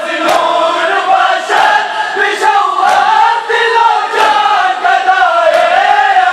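A crowd of men chanting a nauha (Muharram lament) together, with sharp hand slaps on bare chests (matam) landing in unison roughly once a second.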